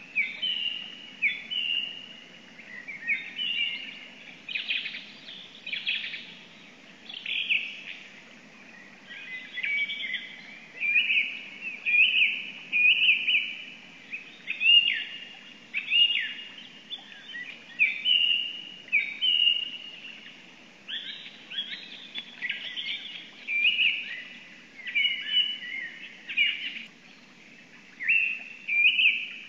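Small forest songbirds singing: short phrases of quick, high notes following one another every second or two, with brief pauses between.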